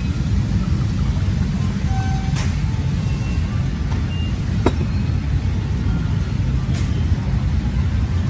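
Steady low rumble of road traffic, with three sharp clicks about two seconds apart.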